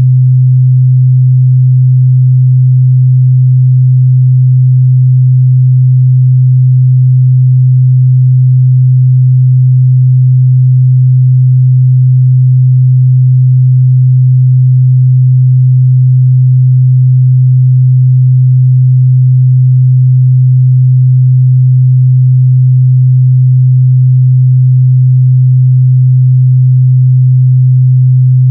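Steady 128 Hz sine-wave test tone, a loud, constant low hum that holds one pitch without change.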